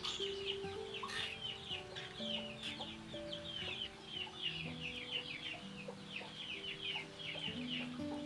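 Many birds chirping rapidly and high, over soft instrumental background music with slow held notes.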